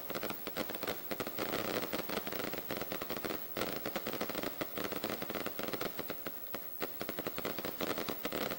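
A long string of firecrackers from a balloon's firework rig going off in a rapid, continuous crackle. It thins briefly about three and a half seconds in and again near seven seconds.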